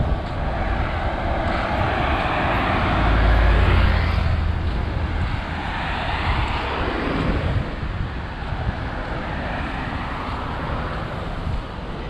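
Road traffic passing close by: several vehicles go past one after another, each swelling and fading. The loudest comes about three to four seconds in, with a deep rumble.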